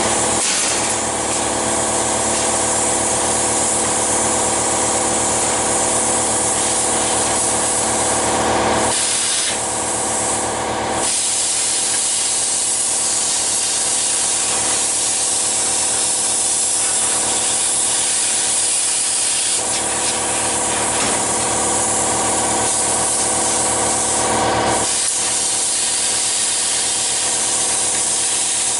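Handheld plasma cutter slicing through 14-gauge sheet steel: a loud, steady hiss of the cutting arc and air, with a steady hum beneath it. The hiss changes briefly about nine seconds in and again near the end.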